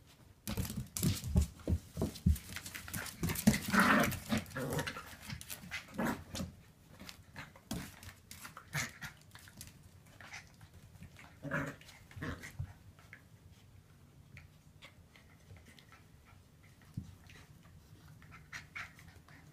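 Two wire fox terrier puppies play-fighting: scuffling and thumps on bedding and floor mixed with short puppy vocal sounds. It is busiest in the first several seconds, flares again about eleven to twelve seconds in, then goes mostly quiet.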